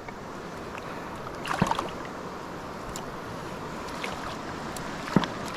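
Creek water running steadily, with a few brief sharp cracks: a small cluster about a second and a half in and a single louder one near the end.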